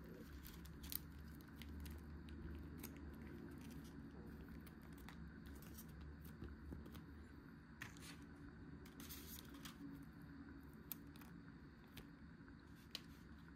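Scattered clicks and short crinkles of plastic convenience-store food packaging being handled and opened, over a steady low hum.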